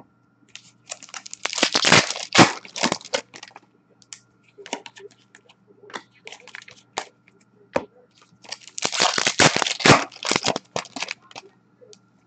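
Two bursts of crinkling from a foil hockey-card pack wrapper being opened or crumpled, about a second in and again about nine seconds in, with scattered clicks and taps of cards being handled and stacked between them.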